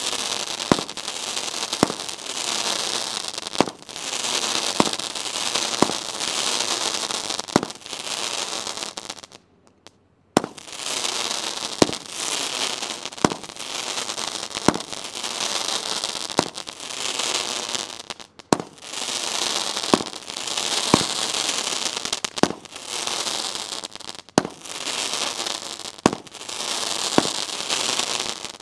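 Memory Fireworks 'You Betcha' crackling mine cake firing: a sharp launch pop about once a second, each followed by dense crackling, with a brief pause about a third of the way through.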